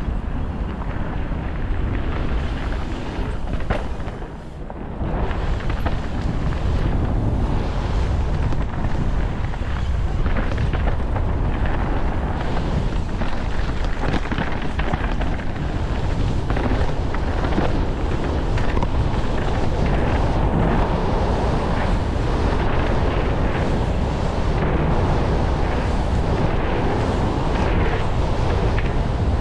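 Trek Slash mountain bike descending a bike-park trail fast: wind buffeting the microphone and knobby tyres running over dirt, with frequent knocks and rattles from the bike. It goes briefly quieter about four seconds in.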